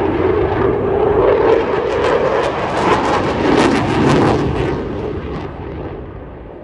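Eurofighter Typhoon jet flying past on its twin EJ200 turbofans. Loud, rough jet noise swells to a crackling peak about three to four seconds in, then fades away.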